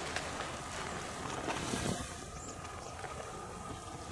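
Wind rushing over the microphone, with soft rustling of a hunting jacket's fabric close by that swells about a second and a half in.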